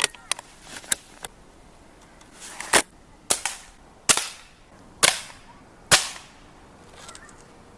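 Air rifle firing at a wooden skateboard deck: a few faint clicks at the start, then five sharp shots in quick succession, roughly a second or less apart.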